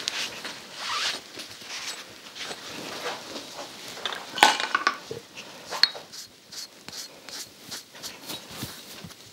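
Tools being handled at a whetstone sharpening bench. A steel blade is rubbed with a cloth, followed by scattered light clicks and knocks of metal and wood being picked up and set down. One sharper clink rings briefly about four and a half seconds in.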